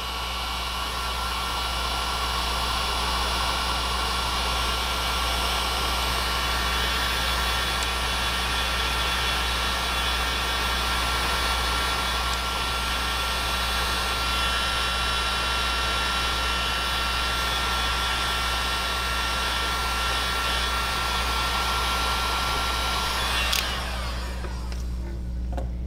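Electric heat gun running steadily, a rush of air with a constant whine, heating a solder sleeve to melt its solder ring onto the wrapped shield-drain braid of shielded CAN bus wire. It cuts off suddenly shortly before the end.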